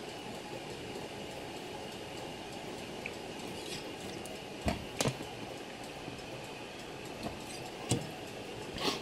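Hand reaming of a pivot hole in a brass clock plate on a bushing press: a faint steady hiss with a few light clicks and knocks from the press and the plate, two about halfway through and two near the end.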